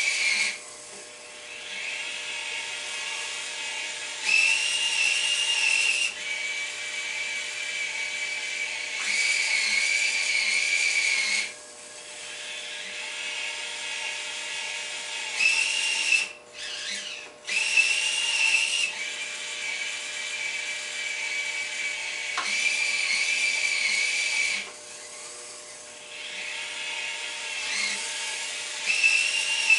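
Small electric winch motors of a radio-controlled model crane with a clamshell bucket, whining in stretches of a few seconds as the bucket is hoisted, moved and lowered. The whine's pitch steps up and down as the motors change speed, with short pauses between moves.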